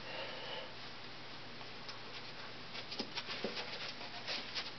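Faint handling noise, probably the puppeteer getting the hand puppets ready below the stage: a few scattered small clicks and soft rustles start about three seconds in, over a steady room hiss.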